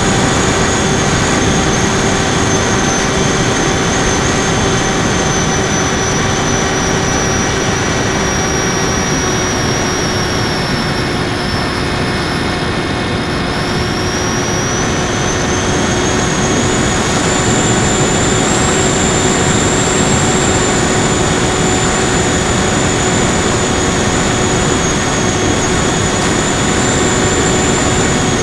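Brushless electric motor and propeller of an FPV Raptor model plane running steadily in flight, recorded on board, a steady hum and high whine over rushing air. The whine sags a little about ten seconds in and climbs again a few seconds later, as the throttle changes.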